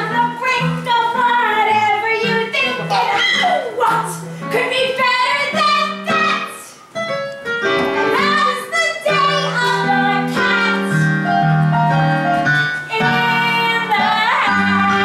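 A woman singing a musical-theatre song over keyboard accompaniment, her voice sliding up and down in pitch, with a brief lull about seven seconds in.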